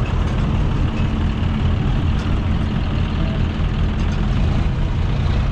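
John Deere farm tractor's diesel engine running steadily, a low, even hum with no revving.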